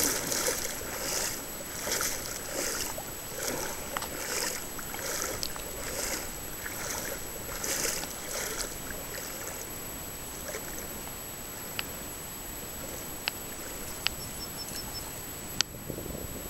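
Wading footsteps through shallow river water, a slosh about every two-thirds of a second, stopping about nine seconds in. After that, faint steady water and air noise with a few sharp single clicks.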